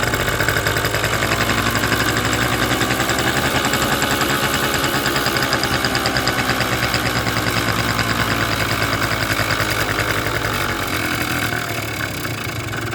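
Kymco Super Fever ZX 50cc two-stroke scooter engine idling steadily while its carburetor air screw is being adjusted. The engine is not getting enough fuel, and near the end it sags slightly, about to stall.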